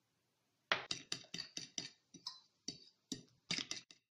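A utensil clicking against a mixing bowl as beaten egg and grated pecorino are stirred together: about a dozen short, irregular taps, starting about a second in.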